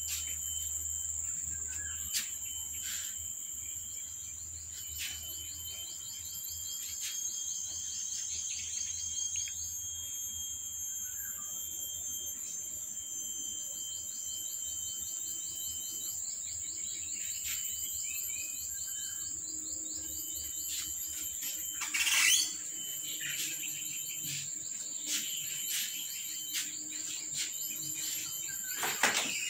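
Steady high-pitched insect trilling, with stretches of rapid pulsing, a few faint short chirps, and a brief louder sweeping sound about 22 seconds in.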